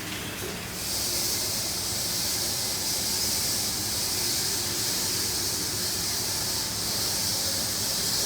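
Superior car wash dryer blowing air, a steady high hiss that starts about a second in and runs on.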